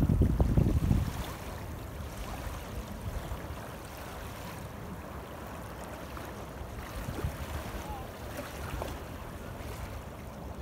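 Wind buffeting the microphone for about the first second, then a steady rush of wind over the river with choppy water lapping.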